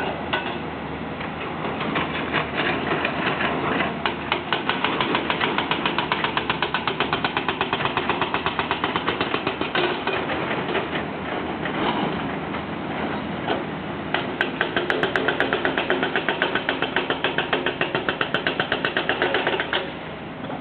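Heavy road-construction machinery working, with a rapid, even pounding of about five or six blows a second. The pounding comes in two long spells, breaking off for a moment about twelve seconds in and stopping shortly before the end.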